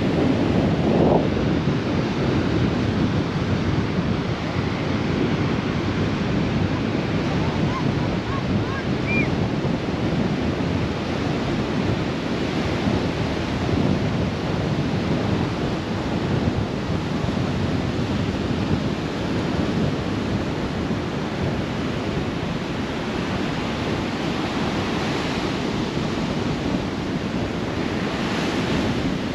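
Surf washing onto the beach, a steady rush of breaking waves with a couple of louder surges near the end, mixed with wind buffeting the microphone.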